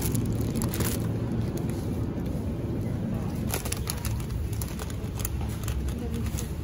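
Plastic food packaging crinkling in short, scattered bursts as bagged groceries are handled, over a steady low hum.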